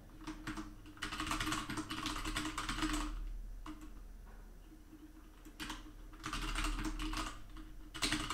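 Typing on a computer keyboard: quick runs of keystrokes about a second in and again past the middle, with a pause between them and a few scattered keystrokes at the start and near the end.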